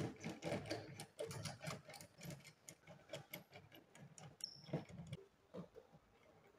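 Faint, irregular clicks and scrapes of a blue neutral wire being handled by gloved hands and pushed into the plastic terminal block of a single-phase energy meter.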